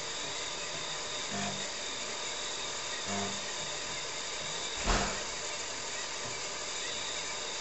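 TRS-80 Model 16B's 8-inch floppy drive working as the hard disk initializer copies utility programs onto the hard disk. A steady whir runs throughout, with a soft knock about every second and a half to two seconds and one sharper click about five seconds in.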